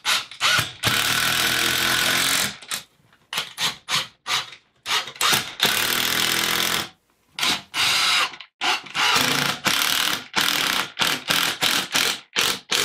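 Impact driver driving drywall screws into DensArmor Plus drywall and the studs behind it. It runs in a series of short bursts with gaps between them, and two longer runs of about two seconds each.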